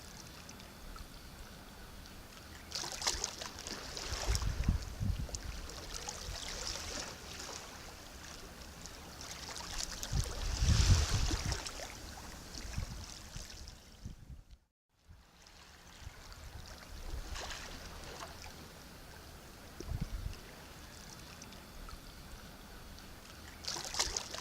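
Sea waves washing in, in uneven surges a few seconds apart, each with a low thud and a hissing wash. About fifteen seconds in, the sound cuts out completely for a moment, then resumes.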